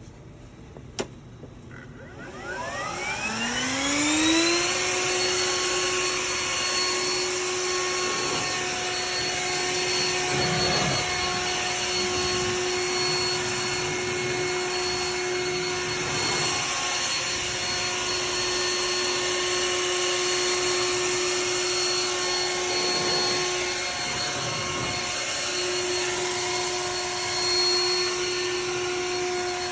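Electric air blower switched on with a click, its motor whine rising in pitch for a couple of seconds, then running steadily with a high whine over the rush of blown air.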